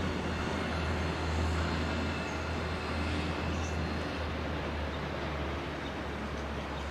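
Matterhorn Gotthard Railway narrow-gauge electric train moving slowly through the station: a steady rumble of wheels and running gear with a low hum underneath.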